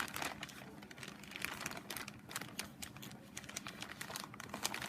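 Irregular light clicks and crinkles of packaging being handled while someone tries to get it open without cutting it.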